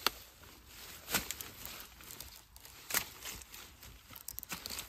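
Long-handled digging tool chopping at the ground among dense grass and bamboo: three sharp strikes, near the start, about a second in and about three seconds in, with leaves and stalks rustling and crackling between them and a flurry of small crackles near the end.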